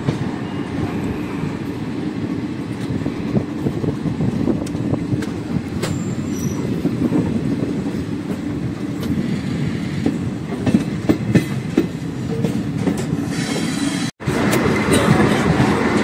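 A passenger train running along, heard from an open coach doorway: a steady rumble of the wheels on the rails, with irregular clicks as they cross rail joints. Near the end there is a momentary dropout, after which the noise is brighter and hissier.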